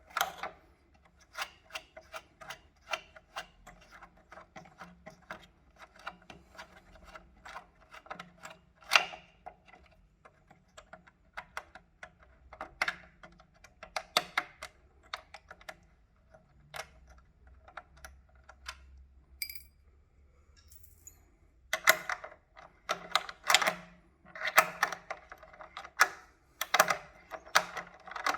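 Rapid, irregular metallic clicks and taps of a 10 mm wrench working the small bolts off an electric unicycle's motor phase-wire terminals. They come in clusters, pause briefly about two-thirds of the way through, then pick up again more densely.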